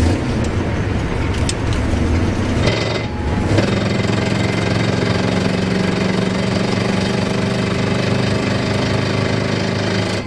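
Minibus engine running and the vehicle rattling as it drives, heard inside the cabin. After a clattery first three seconds, a steady engine drone sets in about three and a half seconds in.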